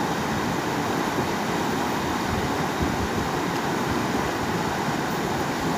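Steady rush of a fast, rocky river running over rapids and a small cascade.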